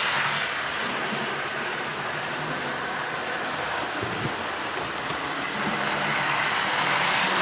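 A train running with a steady rushing, hissing noise. It eases a little in the middle and swells again near the end.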